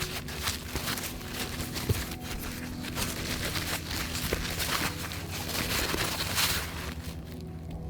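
Packaging rustling and crinkling in irregular bursts, with a few light knocks, as a parcel of parts is unwrapped by hand; it dies down near the end.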